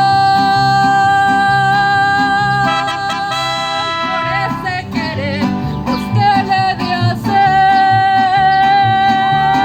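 Mariachi band playing, with long held melody notes over a steady strummed guitar rhythm. The held notes break off about four seconds in and come back near the end.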